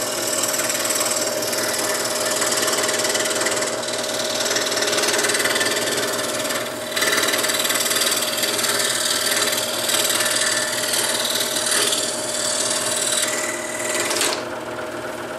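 Scroll saw running steadily, its reciprocating blade rasping through the wood as it cuts out a detailed pattern. The cutting noise eases off about a second before the end while the saw keeps running.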